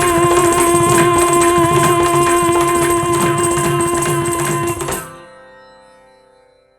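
Closing bars of a Carnatic-style Malayalam film song: a held instrumental chord over rhythmic percussion, cut off sharply about five seconds in, then ringing away to silence.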